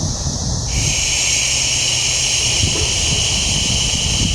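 Wind buffeting the microphone in a steady low rumble, with a steady high-pitched hiss coming in about a second in.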